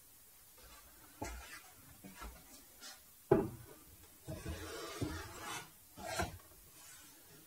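Wooden boards being handled: a few knocks, the loudest about three seconds in, then wood scraping and rubbing against wood.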